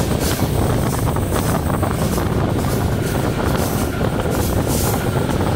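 Steady running noise of a Czech 'žabotlam' (ČD class 451/452) electric multiple unit on the move: wheels rumbling on the track, heard from aboard the train.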